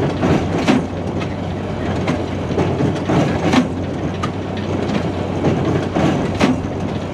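Tractor and large square baler running in the field: a steady engine hum under a rhythmic clatter, with sharp clanks recurring about every half second to second as the baler works.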